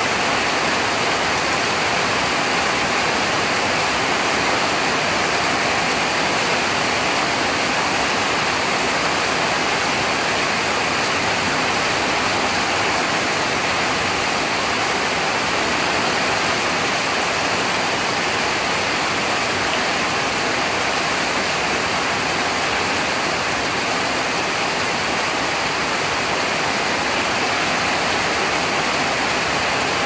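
Heavy rain falling steadily on tiled roofs and a courtyard, a dense, even hiss that does not change.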